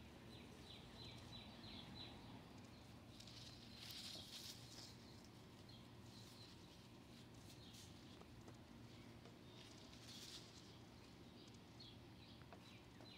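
Faint rustling of mint sprigs against the mesh of a hanging herb drying rack as they are spread out by hand, loudest about four seconds in and again about ten seconds in. A bird sings a run of quick falling chirps at the start and again near the end.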